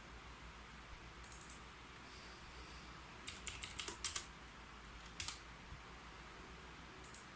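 Keyboard keys typed in short bursts: a few keystrokes about a second in, a quick run of about eight around three to four seconds in, then a couple more halfway through and a couple near the end.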